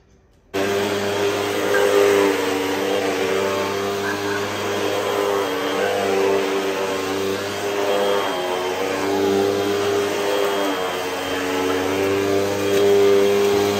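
Hoover WindTunnel upright vacuum cleaner running loud over carpet: a steady motor whine over rushing air, starting abruptly about half a second in.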